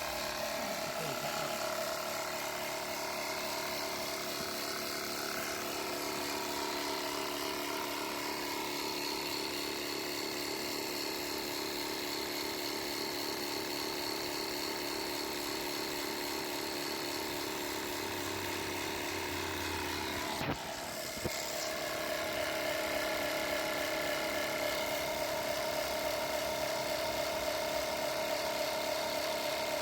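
Battery-powered portable air compressor running steadily with a buzzing hum, inflating a low spare tyre. About two-thirds of the way through it briefly dips with a click, then carries on with a slightly stronger hum.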